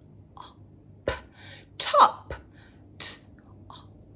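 A few short, breathy vocal sounds from a woman: hissy puffs of breath and one brief falling voiced sound, spaced out with pauses between them.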